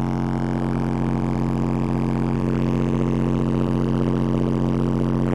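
Car-audio subwoofers in their box playing one steady, loud low bass tone at full power. This is a burst run while the amplifier's output and the box's impedance rise are measured; it reaches about 1520 watts with the box rising to 2.8 ohms.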